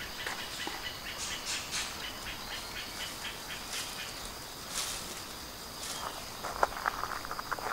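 Insects chirring steadily in a high, even tone. Over it come a few soft swishes as a leafy sakaki branch is swung in a Shinto purification, and near the end a quick run of crunching footsteps on sand.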